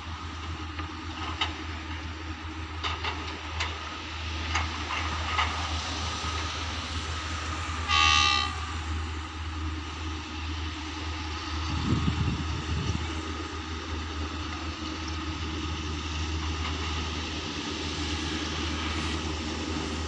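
Alsthom AHK diesel-electric locomotive with a Pielstick engine running in the distance with a steady low drone, giving one short horn blast about eight seconds in. A brief low rumble follows a few seconds later.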